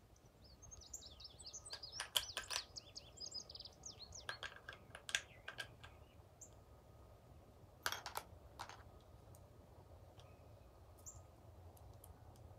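Birds chirping in the background, mostly over the first six seconds. A few sharp metal clicks cut through, the loudest about two and eight seconds in, as a Lee hand press and its reloading dies are handled.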